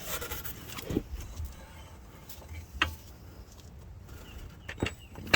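A few scattered short knocks and clicks of parts and tools being handled during front hub work, the loudest near the end, over a faint low rumble in the first second or so.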